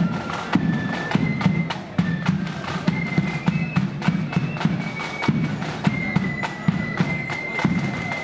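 Marching flute band playing a tune: flutes carrying a high melody over a steady beat of bass drum and side drums.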